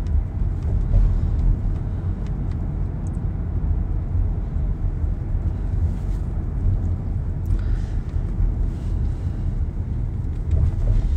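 Steady low rumble of a moving car: road and engine noise heard from inside the cabin.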